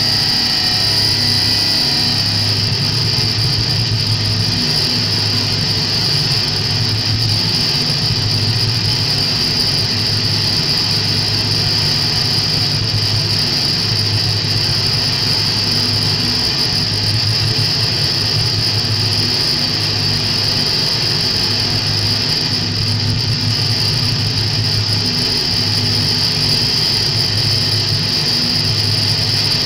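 Loud electronic noise music: a sustained high-pitched squeal held over a low, throbbing drone that swells and dips every second or two.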